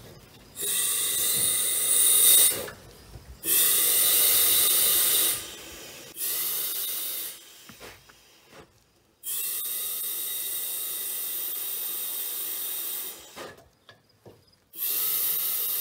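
Compressed air hissing from a blow gun held into a car's fuel filler neck, pressurizing the fuel tank at a low regulated pressure to push fuel up to the pump. It comes in five bursts of about one to four seconds, with short quiet gaps between them.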